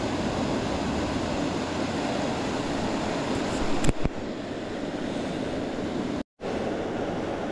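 Steady rush of flowing creek water, with a single sharp knock about four seconds in.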